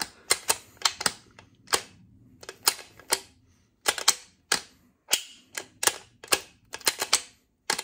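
Sharp metallic clicks and clacks, about two to three a second at uneven spacing, from the shift rails, forks and detents of an opened manual transmission. The selector shaft is being worked by hand through the gears to test the reassembled 5th-to-reverse lockout mechanism.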